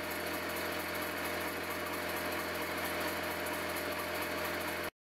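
Miniature live-steam locomotive's motion turning over steadily on a stand, its wheels, coupling rods and valve gear running with a continuous mechanical whirr and clatter while driving the axle pump. The sound cuts out briefly near the end.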